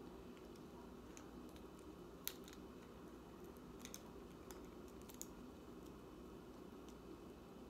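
Faint, scattered small clicks and snips over a low steady hum, the loudest about two seconds in: scissors cutting and fingers handling clear plastic clamshell packaging.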